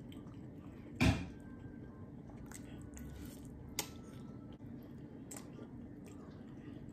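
Close-up eating sounds: soft wet chewing and mouth smacks, with one louder smack about a second in and a sharp click a little before the four-second mark.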